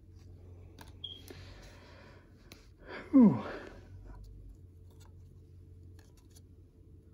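Trading cards sliding and rustling against each other in the hands as one is pulled off the stack to reveal the next. About three seconds in comes one short vocal sound, falling steeply in pitch, louder than the card handling.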